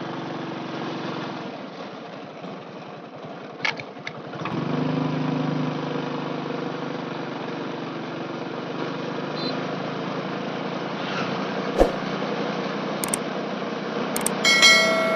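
Motorcycle engine running steadily while riding along a road; its note rises and grows louder about four and a half seconds in. Near the end, a few sharp clicks and a ringing bell chime from a subscribe-button animation sound over it.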